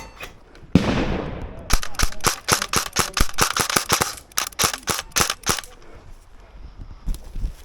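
Airsoft guns firing: a rapid string of sharp clacks, several a second, for about four seconds, with a few scattered shots near the end. A loud sudden burst of noise comes about a second in.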